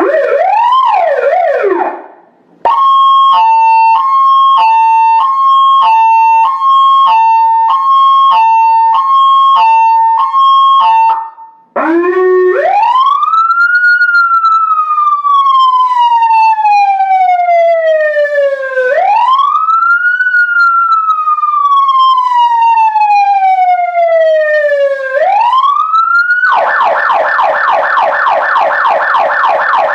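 Efir Zura 3 EF-100R electronic siren modulator sounding through an Elektra LZ20GW light bar, switched through several of its tones. It opens with a brief up-and-down sweep, then plays a two-tone hi-lo that swaps pitch about every half second. About halfway it changes to a wail that rises quickly and falls slowly over about six seconds, and near the end to a fast yelp.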